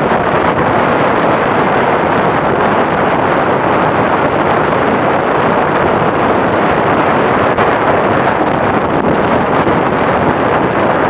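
Strong wind buffeting the microphone, over a steady rush of breaking sea surf.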